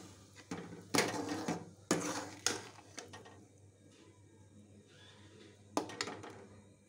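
Metal spatula scraping and knocking against a steel pan while stirring thick rava kesari: about five strokes in the first two and a half seconds, then another near the end.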